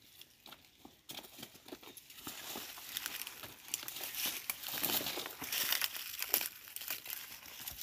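Dry leaves and twigs crunching underfoot and branches of dense scrub rustling and scraping as people push through it, a steady irregular crackle that starts about a second in and grows louder.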